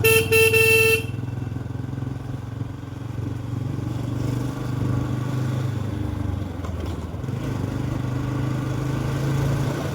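Motorcycle engine running steadily while riding, with a horn sounding once for about a second at the start.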